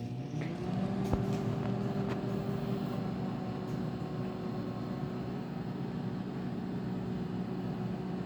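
Microwave oven running with a steady hum, its tones settling in pitch in the first second after starting, with a single click about a second in. The popcorn has not begun popping yet.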